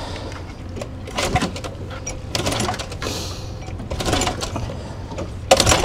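Recoil pull-starter of a small homemade outboard engine yanked several times, about every second and a half, the engine cranking over without catching, which the owner thinks may need priming. A low wind rumble runs underneath.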